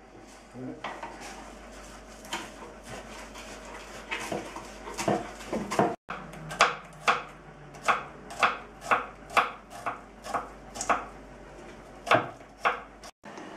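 Kitchen knife chopping garlic and parsley finely on a cutting board. Scattered knocks at first, then a steady run of chops at about two a second.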